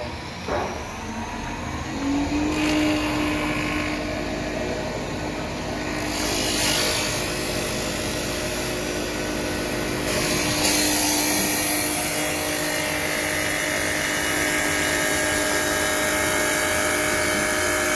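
Automatic CNC wood lathe running: a steady motor whine sets in about two seconds in, and a hiss of the cutters turning the wood grows louder at about six seconds and again near ten seconds.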